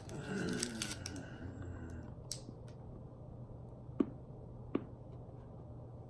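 A person eating a small chalky wrapped candy: a few faint, sharp, separate clicks and crinkles over a steady low hum.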